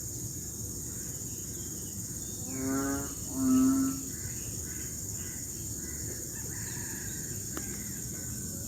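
Frogs giving low mating calls in the rainy season: two loud calls in quick succession about two and a half seconds in, with fainter frogs calling between them. A steady high-pitched insect drone runs underneath.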